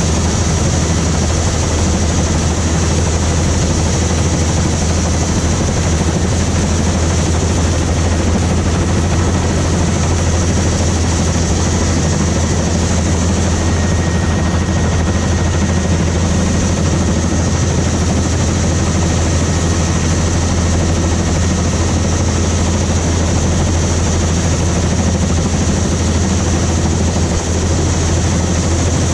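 Helicopter running steadily in flight, heard from inside the doors-off cabin: a loud, constant low rotor drone under a rushing noise.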